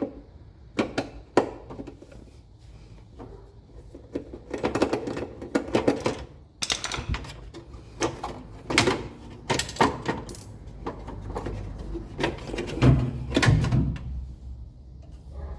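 Irregular metallic clicks, clinks and knocks of tools and parts being handled while a washing machine is dismantled.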